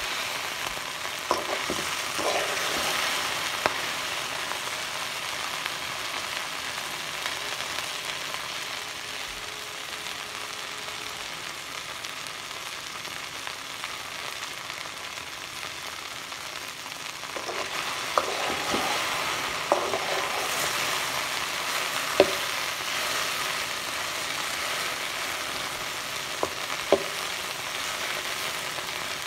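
Okra (ladies' finger) sizzling steadily as it dry-fries in a pan and is stirred now and then, with a few sharp clinks of the stirring utensil against the pan. The sizzle grows louder for a couple of seconds near the start and again over the last ten seconds or so.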